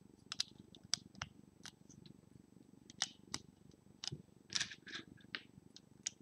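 LEGO plastic pieces being handled and pressed together: about a dozen sharp clicks and small rattles, irregularly spaced, over a faint steady low rumble.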